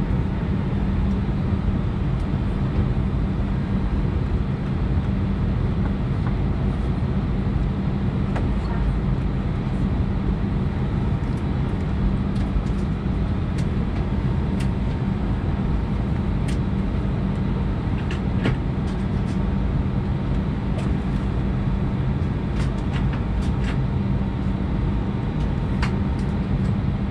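Steady cabin noise of an Airbus A319 on the ground after landing: a constant low rumble and hum from the aircraft's engines and air systems, with scattered small clicks.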